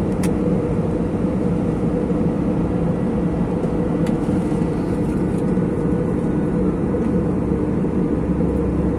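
Airliner engines running at climb power just after takeoff, a steady, loud drone with a low hum, heard from inside the passenger cabin.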